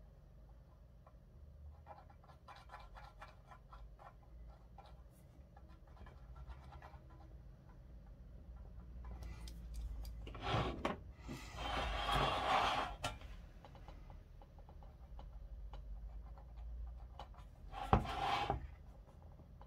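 Faint scratching of a technical pen drawing on a painted metal clock dial, then louder rubbing and scraping as the dial is slid and turned around on a cutting mat, with a sharp knock near the end.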